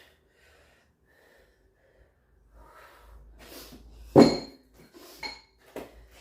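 Heavy breathing with sharp exhalations, then a loud metallic clank of barbell weight plates about four seconds in, ringing briefly, followed by two lighter clinks of the plates.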